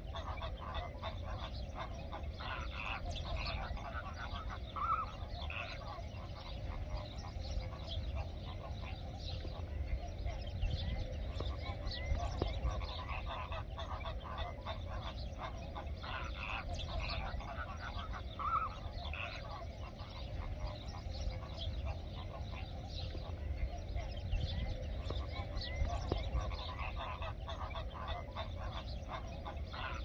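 A flock of flamingos calling: many overlapping goose-like honks and low grunting chatter, with a steady low rumble beneath.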